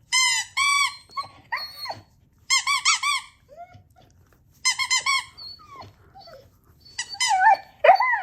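Rubber squeaky toy squeezed in quick runs of two to four identical squeaks, with a Siberian husky answering in wavering whines and short howl-like cries between the runs, loudest near the end.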